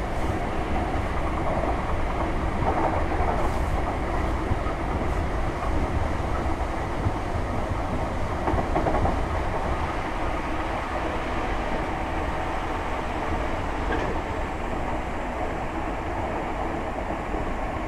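Class 313 electric multiple unit heard from inside its motor coach while running along the line: a steady rumble of wheels on rail and coach body noise, with some clicking over the rail joints. The noise eases off slightly in the second half.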